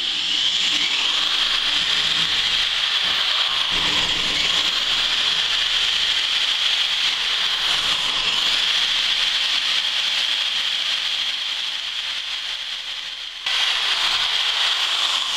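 Corded electric drill running steadily as its bit drills holes through a glass block window. About thirteen seconds in it dips a little, then comes straight back up.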